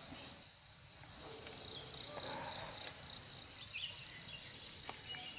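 Insects calling steadily in a high, evenly pulsing buzz, with a soft rustling noise about two seconds in and a single click near the end.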